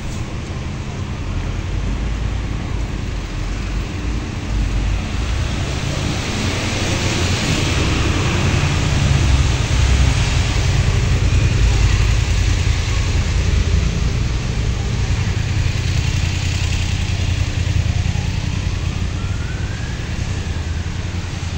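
City street traffic: a steady rumble of passing cars with the hiss of tyres on wet roads. Near the end a faint whine rises and then falls.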